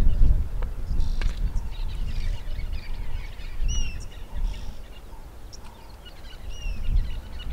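Outdoor bush ambience: small birds chirping, with a few short whistled calls, over a low rumble that eases about five seconds in. There are a couple of sharp knocks in the first second or so.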